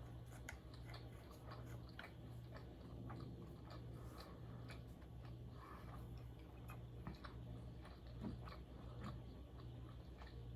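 Close-miked chewing of food, with small wet mouth clicks scattered throughout, over a faint low hum.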